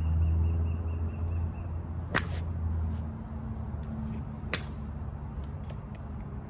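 Two sharp golf-club strikes on balls, a couple of seconds apart, over a steady low hum that drops away about three seconds in.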